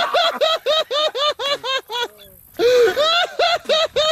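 High-pitched, rapid laughter: a quick run of 'ha' syllables, about eight a second, breaking off briefly about two seconds in and then starting again.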